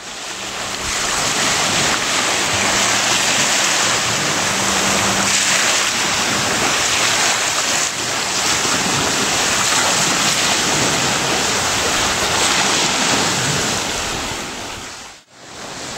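Loud, steady rush of surf and wind at the water's edge, with wind buffeting the microphone. It cuts off abruptly near the end.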